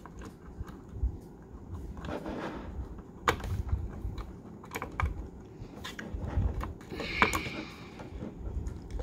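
Plastic shell of an Athearn P42 model locomotive being flexed open and worked onto its chassis by hand: irregular light clicks and taps of plastic with rubbing and handling noise in between.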